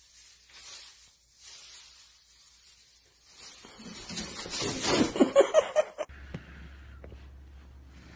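Thin plastic shopping bag rustling and crinkling as a cat paws into it and climbs in, faint at first, then loudest with rapid crackles about four to six seconds in.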